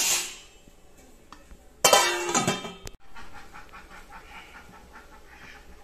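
A metal lid clattering onto the cooking pan about two seconds in and ringing briefly, after a shorter clatter at the start. A soft, quick rhythmic puffing follows.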